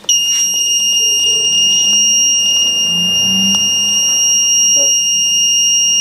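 A continuous, high-pitched electronic beep held at one steady pitch for about six seconds, starting and cutting off abruptly.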